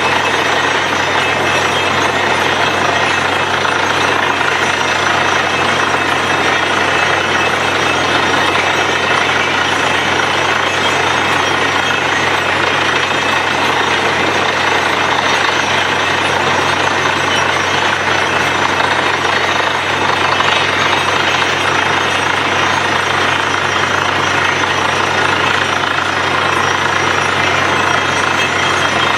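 Borewell drilling machine running steadily: an even, unchanging machine noise with a low hum underneath.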